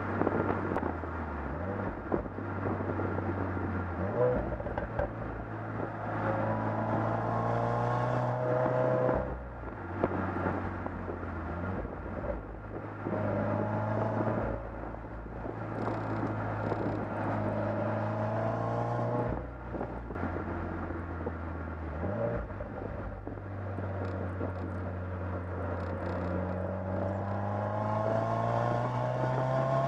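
Exhaust of a 2015 Subaru WRX's turbocharged 2.0-litre flat-four under hard acceleration. The engine note climbs steadily through the revs and drops sharply at each upshift of the manual gearbox, about three times.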